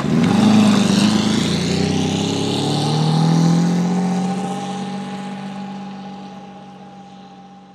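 Lamborghini Diablo SV's V12 engine accelerating hard, its note rising through the revs for about three seconds, then holding a steady pitch as it gradually fades away.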